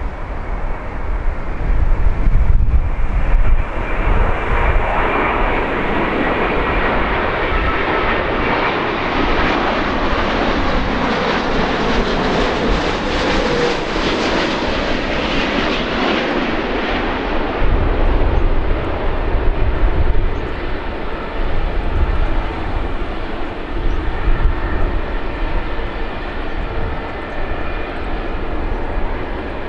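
Scoot Boeing 787's Rolls-Royce Trent 1000 engines on final approach: the jet noise swells to its loudest about halfway through as the airliner passes low overhead, then fades to a lingering whine as it heads for touchdown. Gusty wind rumbles on the microphone.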